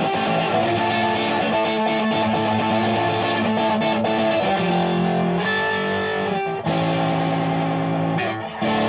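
Electric guitar played through an AMT California Sound distortion pedal, a combo-amp emulator. It starts with a busy strummed chord rhythm, then about halfway through it moves to longer chords left to ring, with two short breaks near the end.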